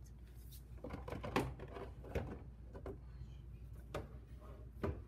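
Scattered, irregular knocks and clacks, with several sharper taps, likely from things being bumped and handled while moving about the shelves.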